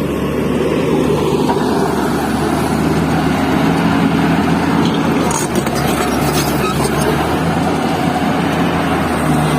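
Heavy diesel engine running steadily, its pitch shifting in small steps now and then.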